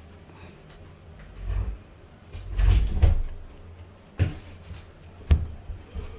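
Door and hinge being handled while the hinge is refitted: a scraping, rubbing swell around the middle, then two sharp knocks near the end.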